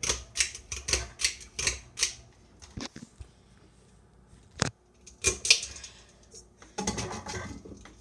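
A quick run of sharp clicks, about four a second, for the first two seconds, then a single click and later clusters of clicks and rattles: a ceiling fan's pull-chain switches being pulled, with the bead chains swinging.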